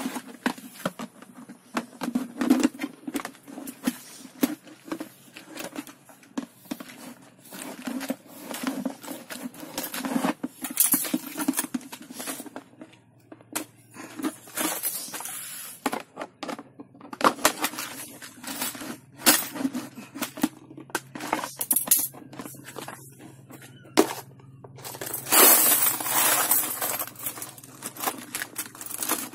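Coins rattling and clinking inside a plastic piggy bank as it is rolled and shaken on a tile floor, in many short irregular bursts. Near the end comes a longer, denser run of rattling and scraping as the bank is handled from underneath.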